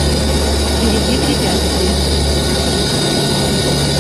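Steady cockpit noise of an Antonov An-12's four Ivchenko AI-20 turboprops, throttled back with the propellers braking the aircraft in a steep descent. A constant drone with a deep hum and a high whine; the deepest hum drops away briefly near the end.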